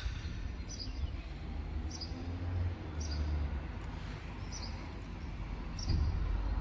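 A small bird chirping, one short high note about every second, over a steady low rumble.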